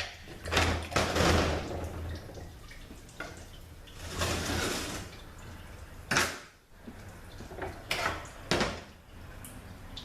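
Metal parts scraping and clunking as the clutch drums and band are worked out of a THM-350 transmission case. There is a scraping rattle at first, then a few sharp knocks.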